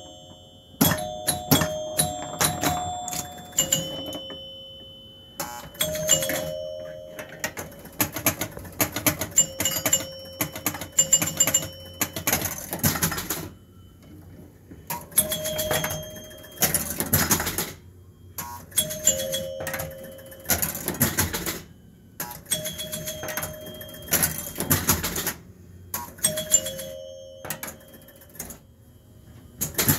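Gottlieb Cleopatra electromechanical pinball machine in play: its chimes ring in clusters as points score, amid rapid clicking of flippers, relays and score reels, with short lulls between bursts.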